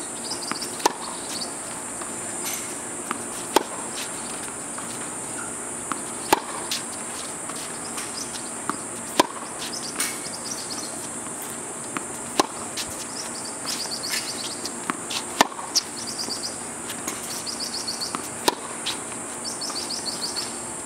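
Tennis racket striking the ball on groundstrokes: a sharp pop about every three seconds, with fainter knocks in between. A steady high insect buzz runs underneath.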